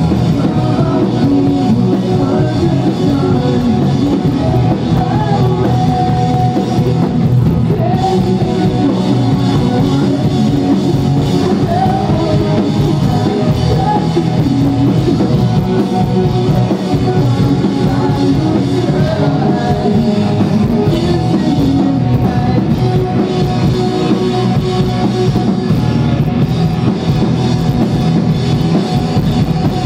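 Live rock band playing loud: drum kit, electric bass and guitar, with a singer's voice over them.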